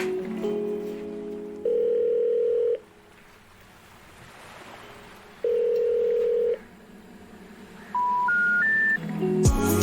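Telephone tones over background music: after the music, a one-second ringback tone sounds twice, then near the end three short rising beeps of a special information tone, the signal of a call that cannot be completed. Music comes back in at the end.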